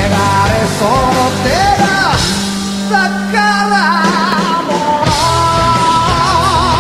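Rock song with a lead vocal line; from about five seconds in, a long note is held with a waver in it.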